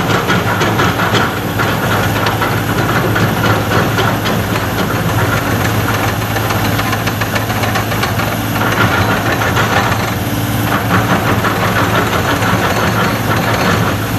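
Excavator's diesel engine running steadily at close range, with a rougher mid-pitched sound that swells and fades a few times.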